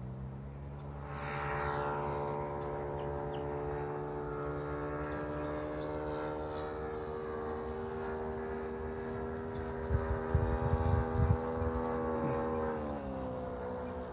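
Engine and propeller of a radio-controlled model warbird flying overhead. The pitch climbs about a second in, holds steady, then drops near the end. Gusts of wind rumble on the microphone about ten seconds in.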